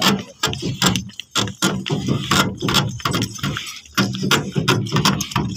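Bullock cart rolling along a dirt track behind a pair of Hallikar bulls: an irregular clatter and rattle from the cart, yoke and harness, with some metallic jingling and a low rumble underneath.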